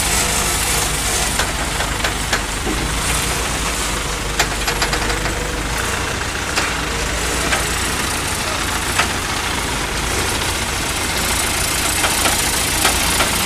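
Heavy vehicle's diesel engine running steadily, with a few sharp clicks and knocks over it, the clearest about four to five seconds in and again about nine seconds in.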